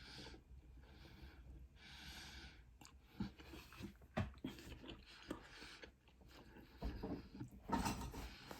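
Close-up chewing and wet mouth sounds of someone eating noodles. Two soft breathy rushes come in the first two seconds, followed by a run of short clicks and smacks that get busier near the end.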